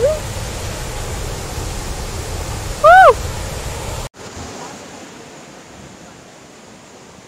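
Waterfall rushing steadily, loud enough to cover speech. About three seconds in comes a brief, loud, high call that rises and falls in pitch. Near the middle, after a sudden cut, the rush continues fainter.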